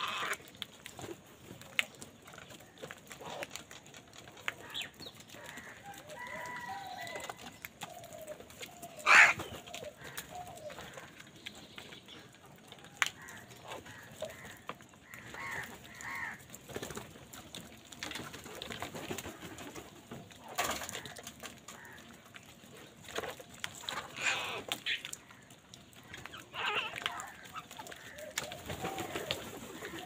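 A flock of house crows feeding, giving scattered harsh caws and shorter calls, with short sharp clicks between them; the loudest call comes suddenly about nine seconds in.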